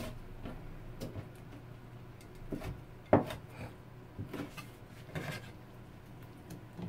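Cleaver chopping squid on a plastic cutting board: about ten irregular knocks of the blade on the board, the loudest about three seconds in.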